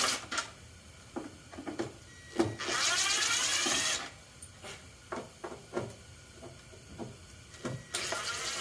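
Cordless drill-driver with a Phillips No. 2 bit backing out taillight screws, its motor running in short spurts with a rising whine. One run comes about two and a half seconds in and lasts about a second and a half, and another starts near the end. Small clicks and knocks of handling fall in between.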